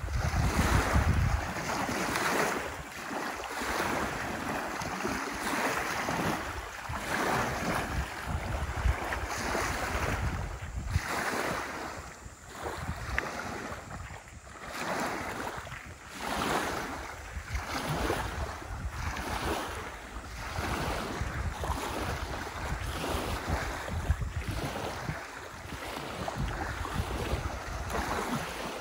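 Small lake waves lapping and washing onto a gravelly shore, swelling and fading every second or two. Wind buffets the microphone with a low rumble, strongest at the start.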